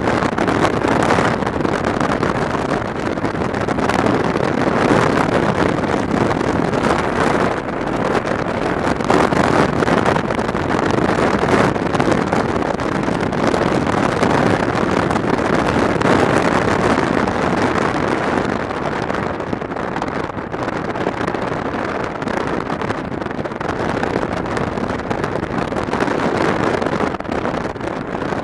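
A motorcycle at road speed heard from an onboard camera: a steady rush of wind buffeting the microphone over the engine and tyre noise, rising and falling a little with the riding.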